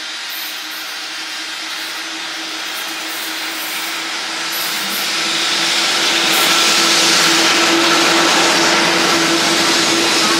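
A train passing close by: a steady rushing run of wheel and running noise that grows louder over the first six seconds and then holds, with a steady humming tone underneath.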